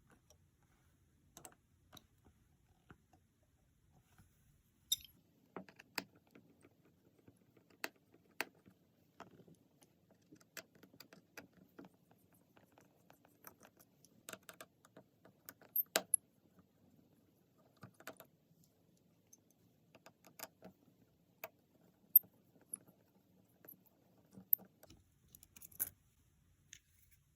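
Small scattered clicks and taps of a precision screwdriver and tweezers working tiny phone screws loose and setting them down, irregular and mostly faint, with a few sharper ticks.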